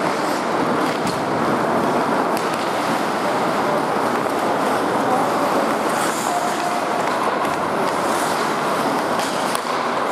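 Ice hockey play on an arena rink: a steady scrape and hiss of skates on the ice, with a few sharp clacks of sticks and puck.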